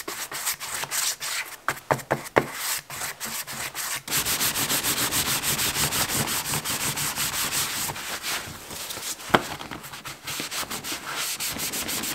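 Oiled leather knife sheath being worked by hand: a few separate brush strokes at first, then a cloth rubbing and buffing the leather in fast, even strokes, about five a second. One sharp tick about three-quarters of the way through.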